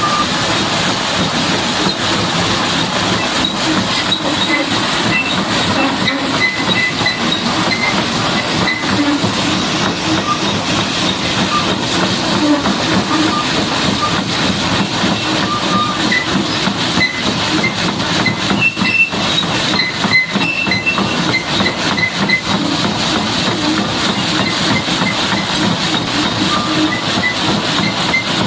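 High-pressure water jet spraying onto a Caterpillar D8R bulldozer, a steady loud hissing rush without a break.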